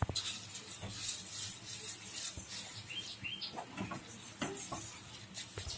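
Plastic spatula stirring and scraping grated sweet potato, milk and sugar around a non-stick kadhai: irregular scrapes and clicks with a few short squeaks from the spatula against the pan.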